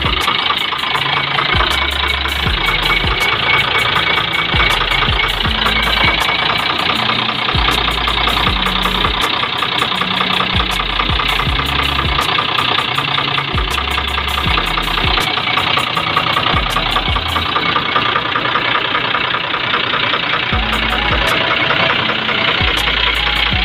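Freshly overhauled diesel bus engine idling steadily, its accessory belts and pulleys turning, with a fast, even ticking over the engine noise.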